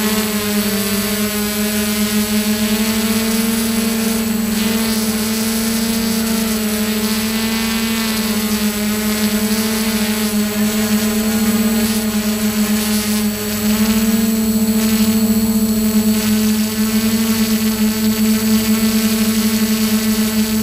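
Quadcopter drone's motors and propellers humming steadily while it hovers, heard close up from the drone's own camera, a little louder about two-thirds of the way through.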